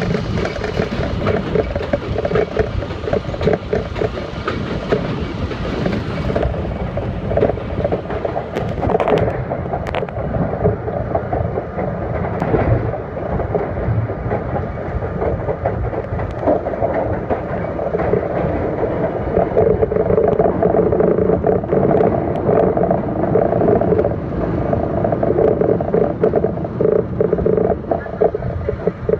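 R32 subway train running on elevated track, heard from the front of the car: steady wheel and motor noise with a stream of clicks and clacks from the rails.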